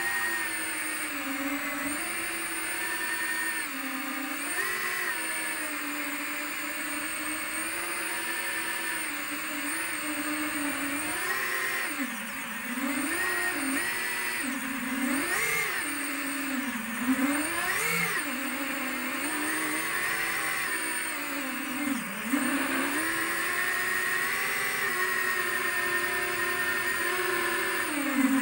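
FPV quadcopter's electric motors and propellers whining, heard from the drone itself. The pitch rises and falls every second or two as the throttle changes, with sharper swoops about halfway through.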